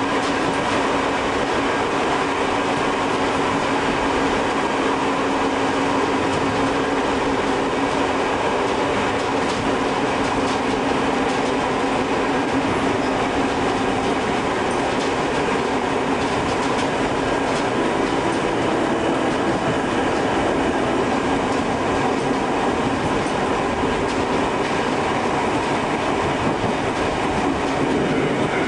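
Tobu 5700 series electric train running at a steady speed, heard from inside the front car: a steady hum from the motors with a few held tones over the running noise. Now and then the wheels click over rail joints.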